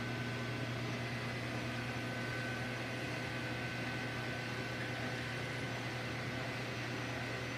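Metal lathe running steadily through a turning cut on a shaft, a constant motor hum with a thin steady whine above it.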